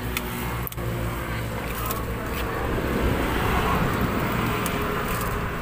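Street traffic with a steady engine hum; a passing vehicle swells louder around the middle. Light plastic clicks and crinkles come from a plastic lid being snapped onto a cup held in a plastic bag.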